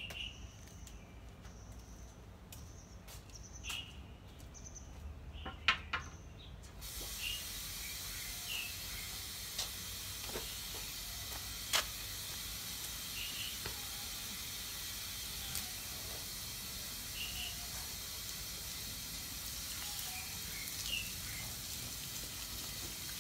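Garden hose spraying water onto a soapy car to rinse it, a steady hiss that starts suddenly about seven seconds in. Before it there are a few sharp clicks.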